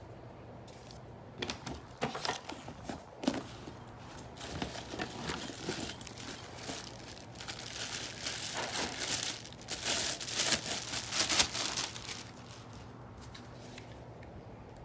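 Packaging crinkling and rustling in irregular handfuls as a gift is unwrapped and its box handled, with scattered sharp clicks; it is busiest near the end, then stops.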